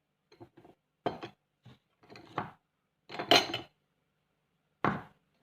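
Kitchen utensils and dishes knocking and clinking in a series of separate short clatters, the loudest about three seconds in.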